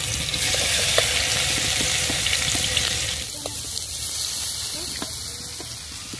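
Masala-coated salmon pieces sizzling in hot oil in a frying pan as more pieces are laid in, with a steady hiss and a few light clicks.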